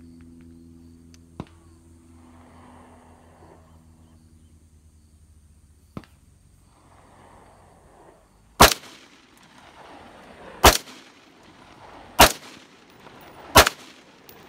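Four rifle shots from an Aero Precision AR-15 in 5.56, the first about eight and a half seconds in and the rest coming about one and a half to two seconds apart, each a sharp crack with a short echo. Two light clicks come earlier, about a second and a half and six seconds in.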